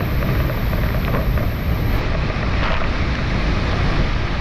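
Rain-swollen water rushing and pouring, a steady loud noise, with wind buffeting the microphone.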